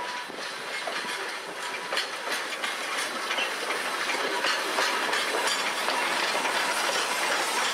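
Steam locomotive Skookum and its passenger train approaching and passing close by, with the clatter of wheels clicking over the rails and a hiss of steam, growing steadily louder as it nears.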